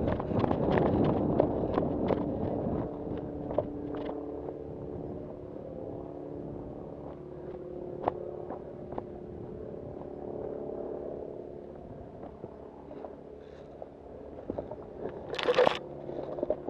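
Footsteps crunching on gravel, with brush and gear scraping, clicking most often in the first few seconds and then thinning out, over a steady hum. Near the end there is one short, loud burst of noise.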